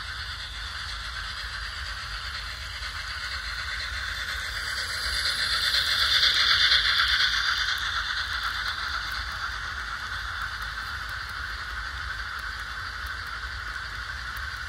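HO scale model train passing along the track: a steady rattle of metal wheels on the rails. It swells to its loudest about six seconds in as the sleeping cars roll close by, then eases.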